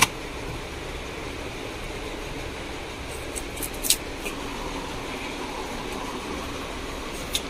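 Steady background noise of a shop, with a sharp click at the very start and a few lighter clicks about four seconds in and near the end, from items being handled.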